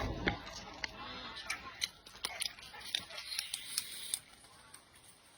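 Scattered light clicks and taps, several a second, fading out a little after four seconds in.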